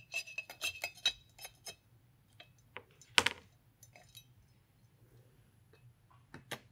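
Small metallic clicks and clinks of a T-handle hex driver backing out the scope-rail screws on an FX Impact M3 air rifle, coming thick and fast for the first couple of seconds. A single sharp clack about three seconds in, and two more clicks near the end as the rail comes off.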